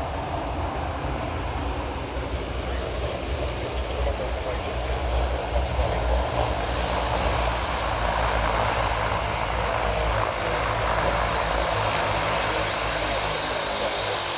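Transall C-160's two Rolls-Royce Tyne turboprop engines running as the aircraft rolls along the runway after landing: a steady high whine that drifts slightly lower over the propeller drone, growing louder as the aircraft comes closer.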